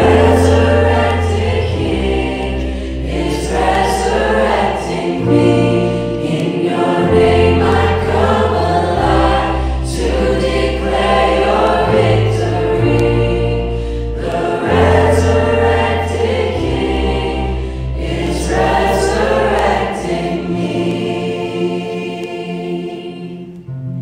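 Live worship band playing a Christian worship song: a group of voices singing together over acoustic guitar and electric bass with long sustained bass notes. Near the end the music dies away on a held chord.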